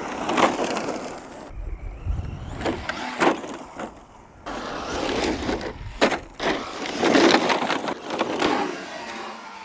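FTX Rokatan radio-controlled car driving over loose gravel and dirt, its tyres crunching on the stones, in a run of short shots that cut abruptly from one to the next.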